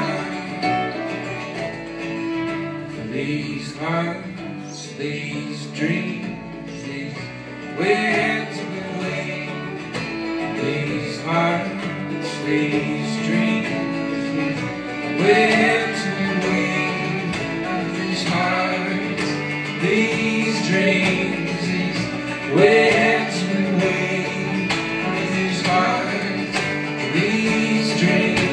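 Live acoustic string band playing a folk song: mandolin, acoustic guitar, upright bass and fiddle, with steady plucked strumming under sustained bowed notes.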